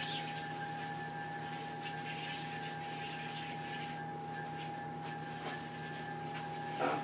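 A Duncan Barracuda metal yo-yo spinning on its string during tricks: faint soft swishes of the string and yo-yo over a steady background hum with a constant whine, and a short thud near the end.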